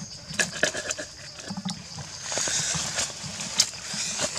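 Cleaver cutting and chopping through a whole roasted duck: irregular knocks of the blade and crackling of the crisp skin.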